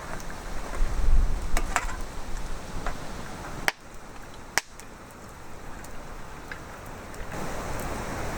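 Wind buffeting the microphone in low rumbling gusts, strongest about a second in, with scattered light clicks and knocks and two abrupt cuts in the sound near the middle.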